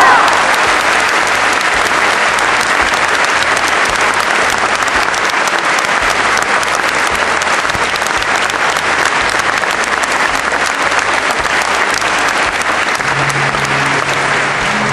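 Audience applauding steadily and at length.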